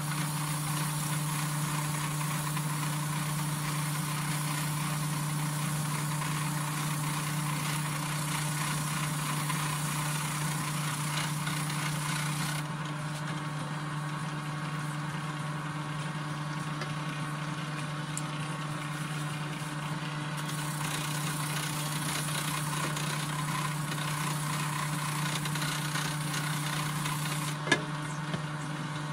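Electric grinder running steadily with its abrasive held against a metal part, a constant motor hum under a grinding hiss; the hiss eases off for several seconds about halfway through.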